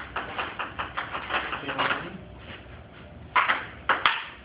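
Table tennis ball clicking off paddles and the table in a rally: a quick run of sharp clicks, a lull of about a second, then a few louder hits near the end.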